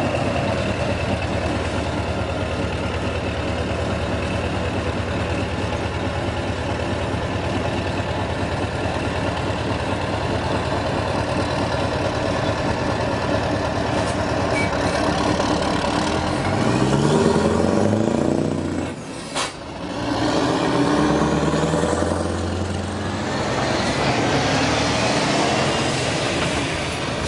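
Scania V8 diesel truck engine idling steadily, then revving up in a few climbing notes about two-thirds through, broken by a brief dip and a sharp click. Near the end the sound turns to a broader rush of heavy trucks driving by.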